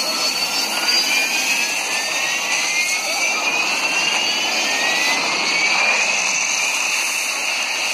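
Jet aircraft engines running loudly, with several whines slowly rising in pitch as the engines spool up.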